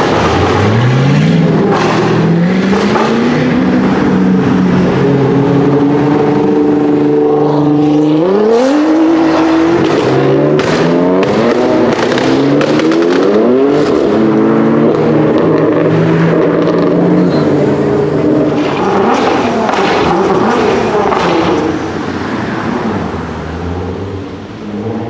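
Performance car engines accelerating and passing, with engine pitch rising through the revs and falling back, several cars at once in the middle. A run of sharp exhaust pops and bangs comes about ten to fourteen seconds in. The first car is a Nissan GT-R R35 with a straight-piped Armytrix exhaust.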